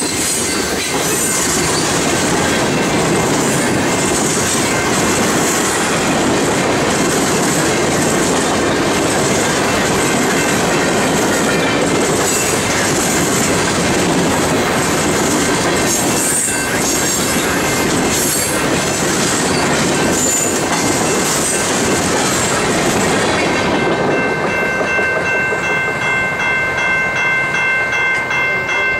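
Freight train of tank cars and steel-coil cars rolling past, with the steady rumble and rattle of wheels on the rails. The noise falls away about four-fifths of the way through as the last cars clear, leaving a steady high ringing of several tones that pulses regularly.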